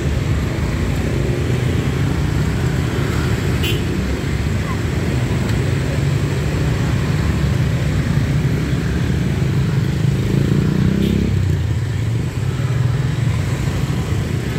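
Dense motorbike and car traffic passing close by, with small motorbike engines running. About ten seconds in, one engine's note rises as it speeds past, then drops away suddenly.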